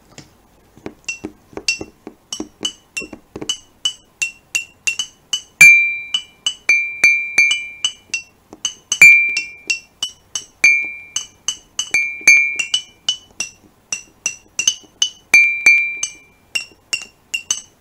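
Rhythmic clinking percussion accompanying a dance: short, glassy ringing strikes at about three to four a second. A lower, louder note that rings longer joins about five and a half seconds in and recurs every second or two.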